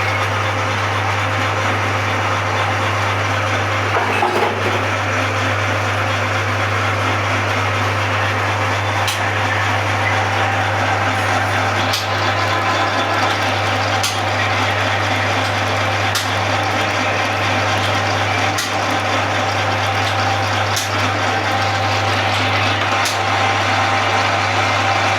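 Manual metal lathe running steadily with a constant low hum and mechanical whir. From about a third of the way in, a sharp click comes roughly every two seconds.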